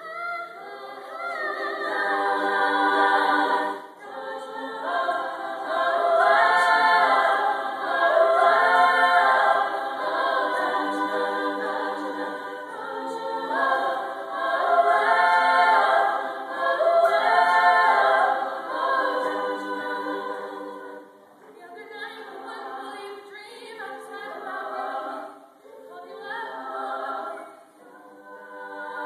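Women's a cappella choir singing in parts, with no accompaniment. The phrases swell loud through the middle and turn softer about two-thirds of the way through.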